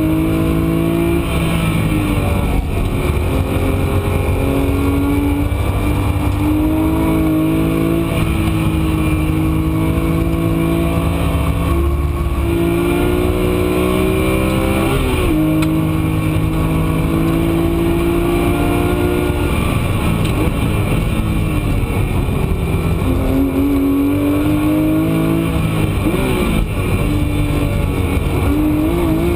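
Porsche 997 GT3 RS flat-six engine heard from inside the cockpit under hard acceleration. The note climbs in several long pulls, each broken by a step down in pitch at an upshift. It turns rougher a couple of times in the last third as the car brakes and downshifts for corners, then pulls again.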